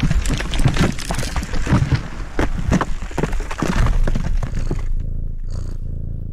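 Sound effects of stone cracking and breaking apart: a dense run of crunching impacts for about five seconds, then a low steady rumble with a bright shimmer about five and a half seconds in.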